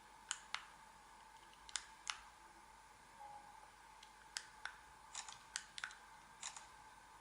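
Short sharp plastic clicks, mostly in pairs, repeated several times: the buttons of a small Bluetooth camera remote being pressed and released. A brief faint tone sounds about three seconds in.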